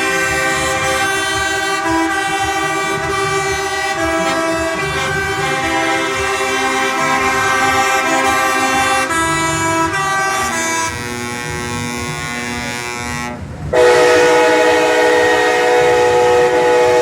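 Several vehicle horns honking at once, long steady blasts at different pitches overlapping. About thirteen and a half seconds in the horns break off for a moment, then a louder horn starts up and holds.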